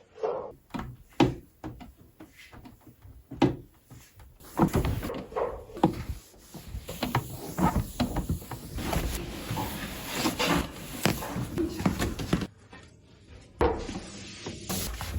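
Close-up handling noises: a run of clicks, knocks and rustles as objects are moved about and set down.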